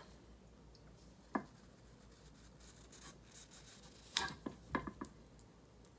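Faint handling of a block of wet floral foam in a ceramic teapot: a single tap about a second and a half in, then a short cluster of scrapes and knocks around four to five seconds.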